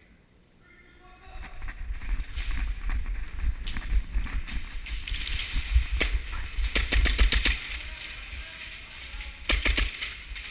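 Airsoft gunfire: sharp cracks of shots and BB hits, a single one near the middle, a quick run of about six a second later, and three or four more near the end, over a low rumbling noise.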